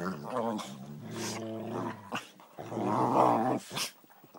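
Dogs play-fighting, growling in long low rumbles, with a louder growl about three seconds in.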